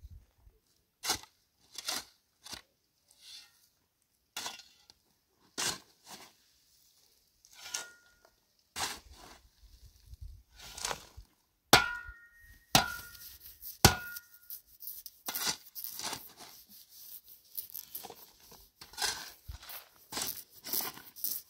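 Irregular knocks and crunching handling noise, with three short ringing clinks a little past the middle and denser crackling rustle toward the end.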